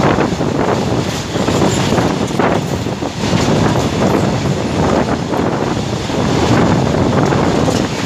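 Steady rushing noise of a freight train's covered wagons passing close alongside a moving passenger train, with wheel and rail noise from both trains and wind buffeting the microphone.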